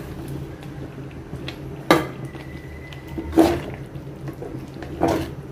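Utensils knocking against a cooking pan three times, about a second and a half apart, as fried chicken pieces are tipped into tomato gravy, over a steady low hum.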